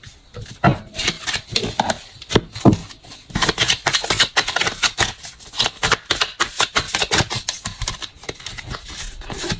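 Tarot cards being shuffled and handled: scattered papery clicks at first, then a dense run of rapid flicks and slaps from about three seconds in.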